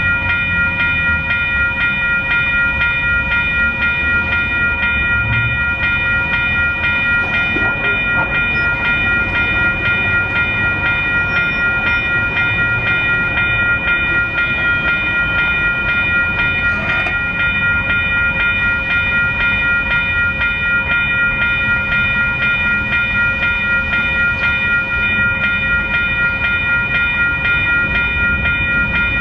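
Level-crossing warning bell ringing nonstop in a fast, even run of dings, switched on just as the crossing signals activate for an oncoming commuter train. Under it runs the low rumble of the approaching train.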